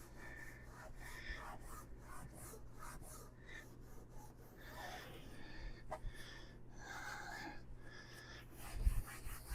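Faint, intermittent scratchy rubbing of a cleaning cloth wiped over a vinyl-covered case.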